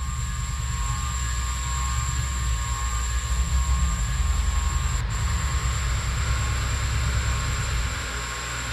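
A 70 cm wall fan running, with the air from its blades buffeting the microphone in a fluttering low rumble that eases slightly near the end. A steady high whine sits over it.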